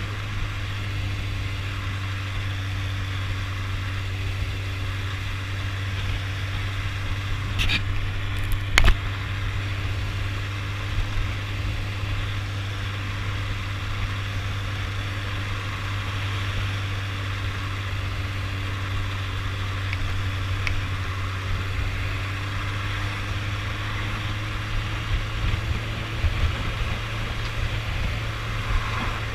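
Suzuki motorcycle riding along with its engine running steadily, heard as a constant low hum under an even rush of wind on the camera. A single sharp click or knock stands out about nine seconds in.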